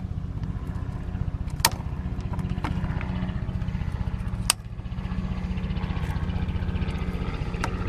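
An engine running steadily with a low, fast, even pulse, with two sharp clicks, one about one and a half seconds in and one about halfway through.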